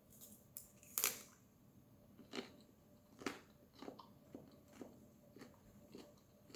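A person chewing and crunching on crunchy food close to the microphone, with a string of short crunches, the sharpest about a second in and then smaller ones every half second or so.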